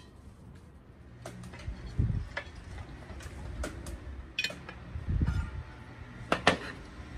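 A Silverstar OiC grill pan and its domed metal lid clinking and knocking as they are handled and the pan is set on a gas camping stove: a dozen or so sharp metallic clinks with two low thumps, the loudest clink near the end.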